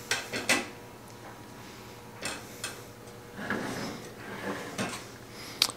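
Scattered light clicks and taps of computer hardware being handled on a wooden tabletop: a server motherboard and its expansion cards moved by hand.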